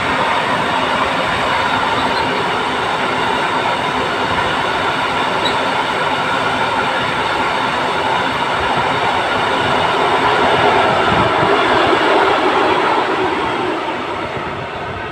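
A freight train of tank wagons rolling past: a steady rumble of steel wheels on rails. It swells a little about ten seconds in, then fades as the last wagons draw away.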